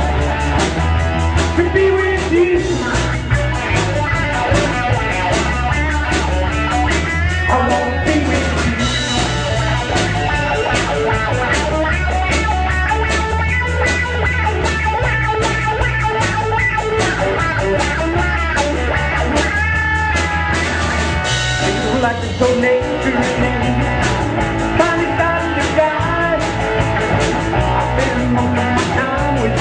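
Rock band playing: electric guitar over a bass line and drums keeping a steady beat.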